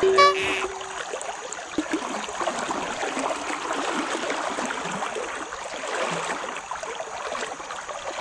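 River current running steadily over shallows, an even rush of water, with a short steady tone in the first second.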